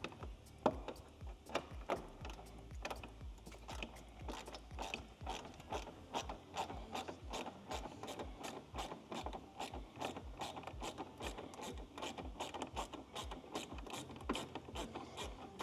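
Hand ratchet clicking steadily, a few clicks a second, as long 8mm screws are backed out of a car's front bumper.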